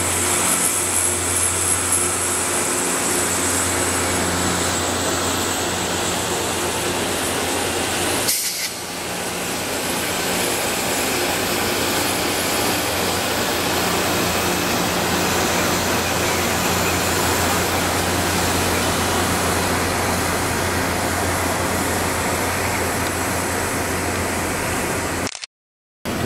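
Loram rail grinding train passing, its grinding stones working the rails: a steady grinding noise over a low engine hum, with a high whine for the first few seconds. The noise dips briefly about eight seconds in and cuts off just before the end.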